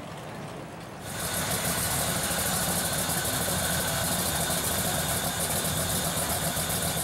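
502 cubic-inch big-block Chevrolet V8 in a hot-rodded 1938 Chevrolet pickup, idling steadily with a fast, even beat. It comes in abruptly about a second in, over quieter background before it.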